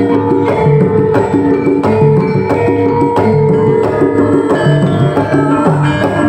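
Javanese gamelan playing dance accompaniment: hand-drum strokes over bronze metallophones sounding a steady run of notes.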